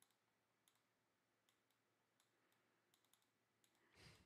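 Near silence: faint room tone with a few very faint, scattered clicks.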